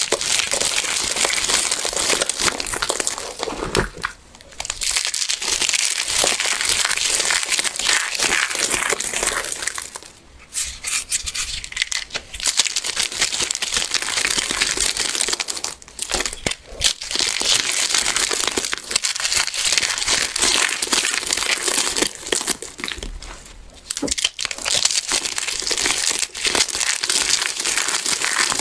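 Golden yellow blocks of dried crunchy soap crushed by hand, a dense crunching and crumbling in bouts of several seconds with brief pauses about every six seconds.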